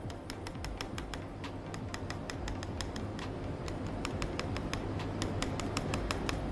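Rapid, irregular clicking, several sharp clicks a second, over a low steady hum.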